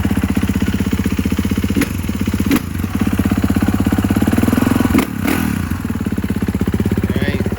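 Engine of a 2019 Kawasaki KX450, a single-cylinder four-stroke dirt bike, running at idle with an even, rapid pulsing, with a few brief throttle blips, freshly started on its electric starter after a rebuild.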